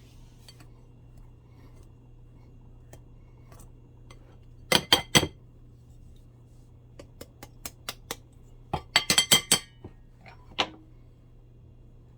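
Kitchen utensils clinking against a mixing bowl: three sharp ringing clinks about five seconds in, a few lighter taps, then a quick run of clinks around nine seconds and one last one.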